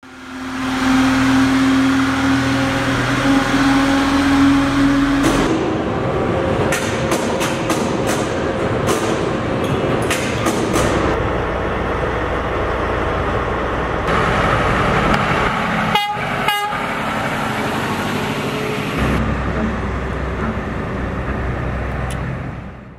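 Heavy truck sounds: a long steady horn-like tone for about the first five seconds, then an engine running, with a few sharp clicks about two-thirds of the way through.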